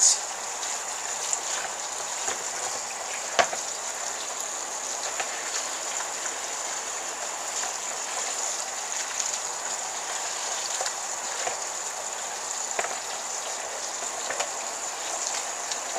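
Tap water running steadily into a colander of hominy in a sink while hands stir and rub the wet kernels, rinsing off the wood-ash lye and loosened skins. One sharp knock about three and a half seconds in.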